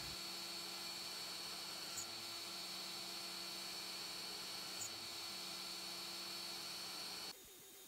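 Shapeoko 3 CNC router's spindle running steadily and faintly, a hum with a high steady whine, as its 1/16-inch carbide end mill drills stitch holes through leather and Kydex; a couple of faint ticks about two and five seconds in. The sound cuts off abruptly about seven seconds in, leaving quieter room noise.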